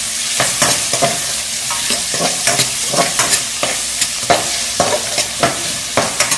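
Chicken pieces sizzling in oil in a wok as they begin to cook, with a spatula repeatedly scraping and knocking against the metal pan while they are stirred.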